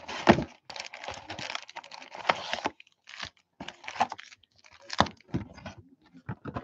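Empty cardboard trading-card box being handled and opened up, giving an irregular run of crackles, rustles and taps.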